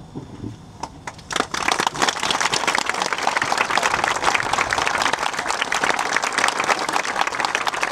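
Crowd applauding, starting with a few scattered claps about a second in and swelling into steady, sustained applause, with one person clapping close by.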